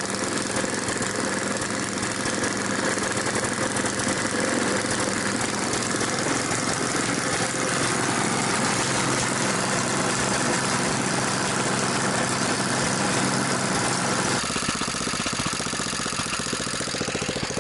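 BSA 220cc governed single-cylinder engine running steadily with an even firing beat. About fourteen seconds in the sound changes abruptly and takes on more low rumble.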